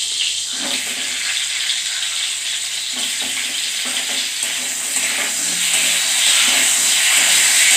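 Sliced runner beans sizzling as they fry in hot oil in a steel kadai, with a steel spatula scraping and stirring them. The sizzle grows a little louder from about two-thirds of the way in.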